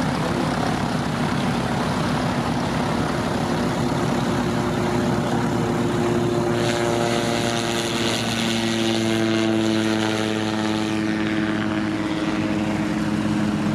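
Light-aircraft piston engines and propellers running close by, a steady engine drone throughout. A louder rushing hiss from the propellers joins about six and a half seconds in, and the engine note dips slightly in pitch in the last few seconds.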